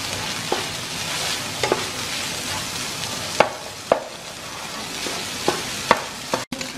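Egg fried rice being stir-fried in a nonstick frying pan: a steady sizzle, with a wooden spatula scraping and tapping against the pan about seven times, the sharpest taps around the middle.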